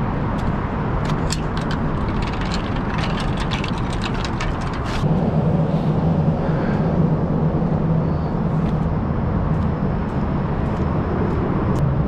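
An engine running steadily, getting louder about five seconds in, with a run of sharp clicks and crackles over the first five seconds.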